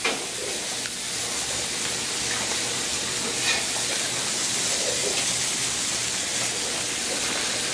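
Shrimp in garlic butter and steaks sizzling on a flat-top griddle, a steady hiss, with one short scrape about three and a half seconds in.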